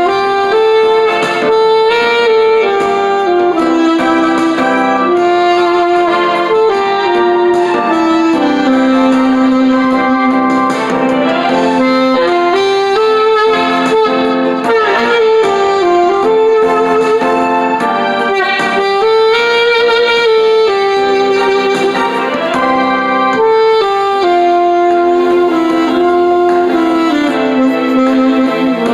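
Saxophone playing a melody of held notes over a piano or keyboard accompaniment.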